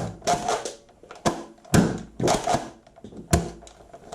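Nerf foam-dart blaster being fired at targets: four sharp clacks spread over the few seconds, with softer knocks between them.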